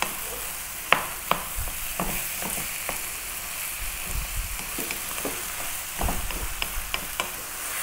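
Ground beef, onion and carrot sizzling in a hot frying pan, with a wooden spoon scraping and tapping against the pan now and then as the mince is broken up and stirred.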